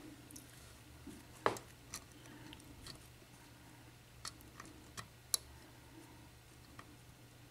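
Lock pick working the pin stacks inside a Dorma mortice lock cylinder: faint scraping with several small, sharp clicks spaced irregularly, the loudest about one and a half seconds in and just after five seconds.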